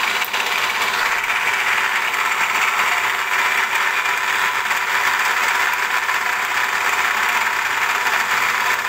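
Milling machine end mill cutting 4340 chromoly steel: a steady, unbroken cutting noise with a constant hum underneath.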